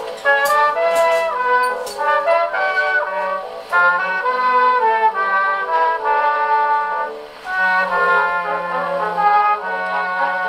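HMV 102 portable wind-up gramophone playing a 78 rpm record of brass-led music, with trumpet prominent. The sound is thin, with little bass or treble, and a few surface clicks in the first couple of seconds.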